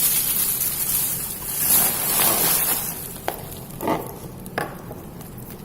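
Packaging being handled during an unboxing: a rustling, crinkling hiss for the first few seconds, then a few separate clicks or knocks as the level drops.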